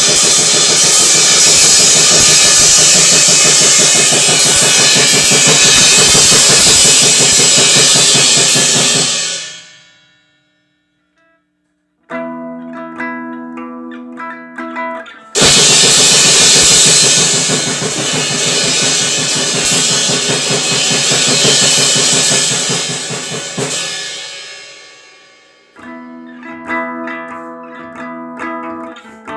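Grindcore/noise music by a drums-and-guitar duo: a dense wall of distorted noise and drums that fades out, a short gap, then a quieter passage of held pitched notes with light clicks. The wall of noise cuts back in abruptly about halfway through and fades again, giving way to the held notes near the end.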